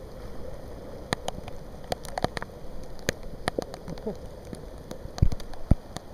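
Heavy rain falling, with scattered sharp taps of drops landing close to the microphone and a few louder knocks about five seconds in.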